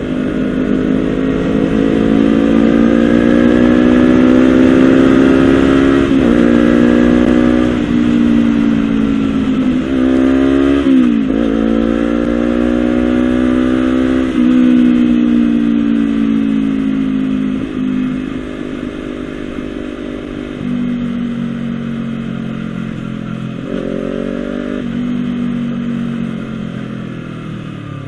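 Honda CBR250RR parallel-twin engine running through a Villan SV1 slip-on exhaust, its pitch climbing steadily, dipping and picking up again twice, then falling away to a lower, steadier note with one short blip near the end. It has a deep, bassy note low in the revs.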